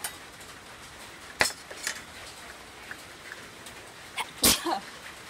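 A few light knocks and clinks of a metal spoon and dishes on a wooden table as bowls are moved about, then a louder short burst about four and a half seconds in.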